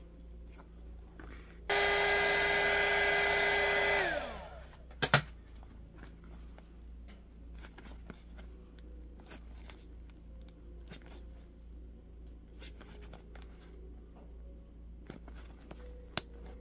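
Heat gun blowing for about two seconds, then switched off, its fan motor whining down. A sharp knock follows. After that come faint rubbing and clicking from gloved hands working a glued rubber RC tire off its plastic rim.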